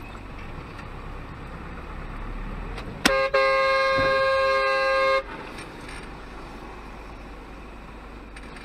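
Steady road and engine rumble, broken about three seconds in by a sharp bang as cars collide. A steady vehicle horn blast follows at once and lasts about two seconds, the loudest sound here, before the rumble returns.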